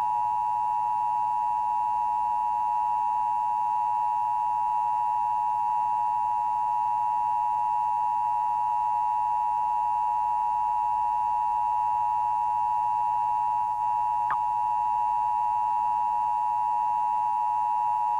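Emergency Broadcast System attention signal: a steady two-tone alert of 853 Hz and 960 Hz played together, holding unchanged, with one brief click about fourteen seconds in.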